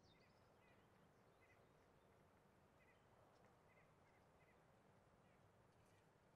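Near silence: very faint outdoor ambience with small, high bird chirps repeating about once or twice a second.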